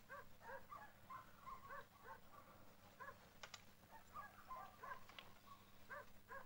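Dogs barking faintly, short repeated barks at irregular intervals, with two sharp clicks about halfway through.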